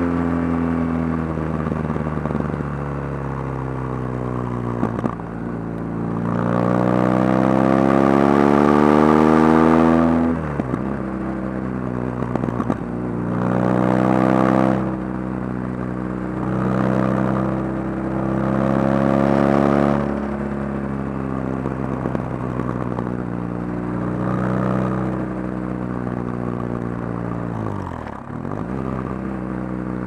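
BMW R 1200 R's boxer twin engine under way, rising in pitch several times as it is opened up and falling back as the throttle closes or it shifts gear, with the longest pull from about six to ten seconds in.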